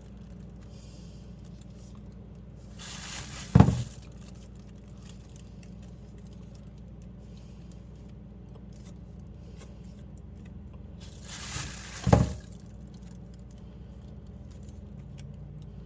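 Two short handling noises during food preparation, each a brief scrape ending in a sharp knock, about eight seconds apart, over a steady low hum.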